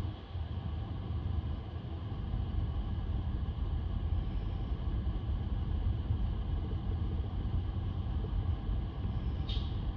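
Street traffic rumble with wind buffeting the microphone, a car passing close at the start. A brief high squeak near the end.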